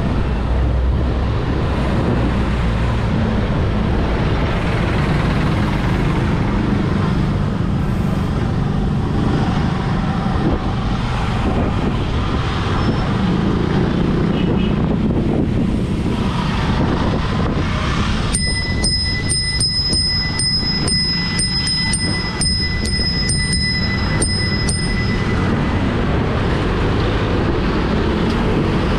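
Steady motor-traffic and road noise while cycling along a busy street. About two-thirds of the way in, a brass handlebar bicycle bell is rung rapidly over and over for about seven seconds, each strike ringing with a clear bright tone.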